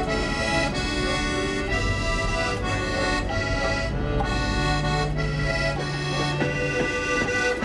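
Background music on accordion: a slow tune of held chords that change about every second over a low bass line.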